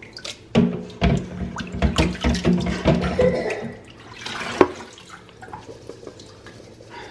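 Water sloshing and splashing as a stainless steel colander of raspberries is swished in a sink basin of water to rinse them, loud for about three seconds starting half a second in. A single sharp knock comes about a second later, then fainter water sounds.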